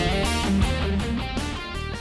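Improvised electric guitar lead line, played on a Vigier Excalibur Special through a Marshall JCM 900 head, over a backing track. The notes step from one to the next, and the whole mix fades out steadily.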